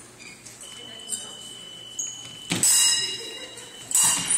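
Épée blades clashing: two loud metallic clashes with a ringing tail, about a second and a half apart, the second as one fencer lunges. Before them a steady high-pitched tone sounds for about two seconds.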